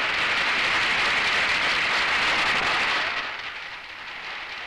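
Crowd applause, a dense hiss of many hands clapping that holds for about three seconds, then fades.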